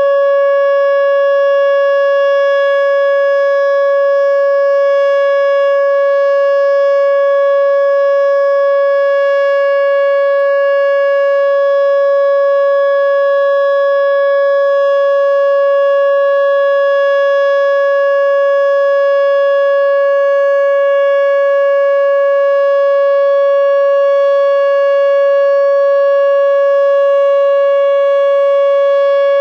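Whelen Omni-Alert OA4 electronic outdoor warning siren sounding its full alert signal: one loud, steady tone that holds its pitch without wavering, rich in overtones.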